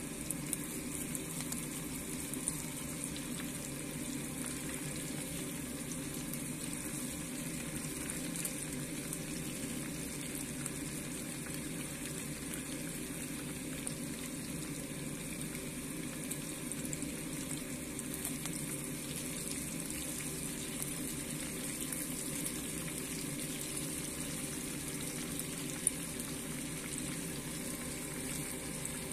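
Whole mackerel frying in a pan of bubbling oil: a steady sizzle with fine crackling, and one sharper pop of spattering oil near the end.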